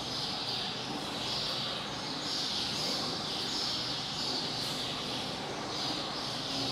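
High, hissy chirping calls of about half a second each, repeating roughly once a second over a steady background hum of outdoor noise.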